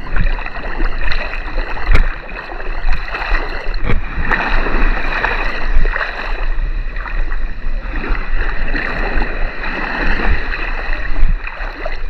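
Shallow sea water sloshing and splashing, with uneven surges in loudness and a couple of sharp knocks.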